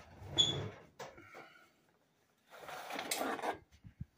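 Metal sheet pan being put into a home oven: a clank with a brief metallic ring about half a second in, then about a second of scraping as the pan slides across the wire oven rack.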